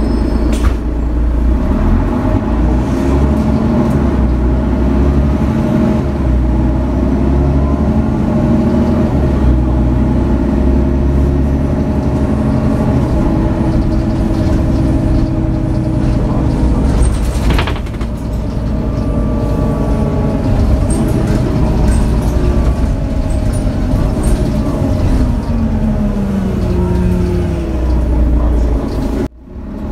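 Inside a Mercedes-Benz O530 Citaro city bus, its OM 457 hLA diesel engine and ZF Ecomat automatic gearbox are running while the bus drives. The engine note rises as the bus picks up speed in the first few seconds, holds steady, then falls near the end as it slows. A single short knock comes a little past halfway.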